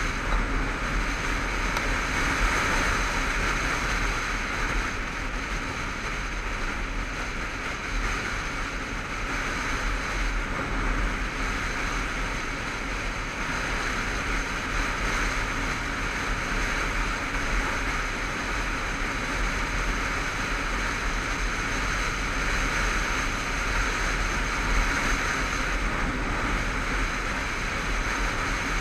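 Steady wind roar over a helmet-mounted camera while riding a motorcycle at an even cruising speed, with the bike's engine running underneath.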